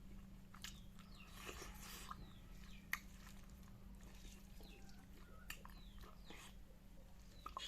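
Faint close-up eating sounds of kidney beans with perilla seed chutney: soft chewing with a few sharp mouth clicks and short smacks, over a steady low hum.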